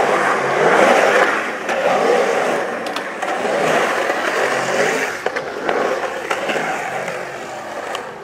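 Skateboard wheels rolling on a concrete bowl, a continuous rumble that swells and fades as the rider carves the walls. A few sharp clicks come in the second half.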